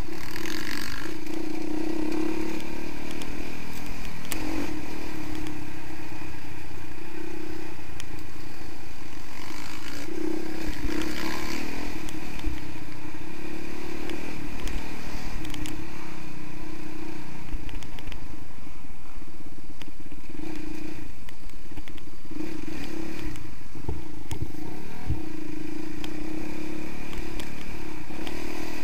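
Honda CRF 450R's single-cylinder four-stroke engine, picked up by a camera mounted on the bike, rising and falling in pitch as the throttle opens and closes on the trail. Occasional clatter from the bike over bumps.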